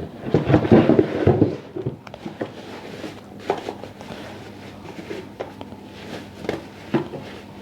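Handling noise of an electric kettle and its packaging being unboxed: a stretch of rustling in the first second or so, then scattered light clicks and knocks.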